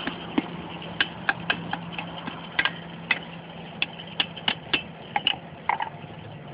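Blacksmith's hammer striking iron on the anvil: a quick, irregular run of sharp, ringing blows, about fifteen in all. A steady low hum runs underneath.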